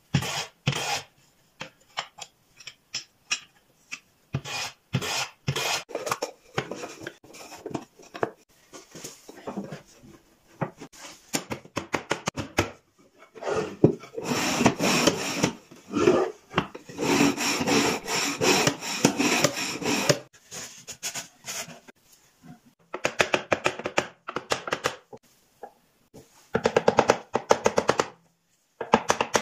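Hand woodworking: a wooden hand plane shaving thin wooden slats in a series of short strokes, then a long stretch of dense rubbing and rasping on wood, and near the end two quick runs of light hammer taps on the wooden box.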